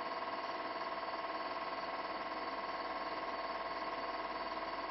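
Film projector running: a steady whirring buzz with a fast, even flutter.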